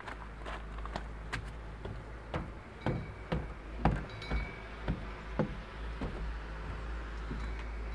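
Footsteps on weathered wooden stairs and wooden decking: a steady walk of hollow knocks, about two a second.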